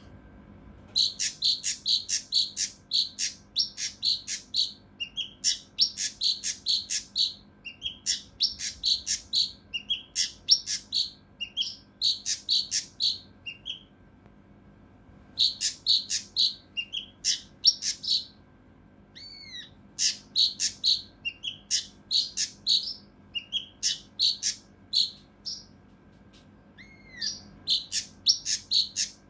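Kinoi (cucak rante mas) songbird calling in rapid, dense runs of short, harsh, clipped notes, the 'tembakan kasar rapat', in bursts of a few seconds with brief pauses between them. A few short curved whistles come in between runs.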